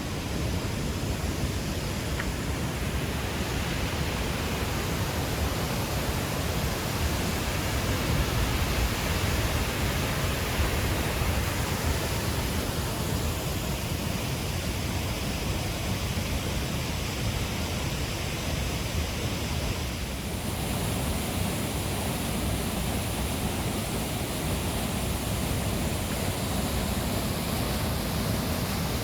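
Naena Falls, a large waterfall, pouring down: a dense, steady rushing of falling water, its character shifting slightly about twenty seconds in.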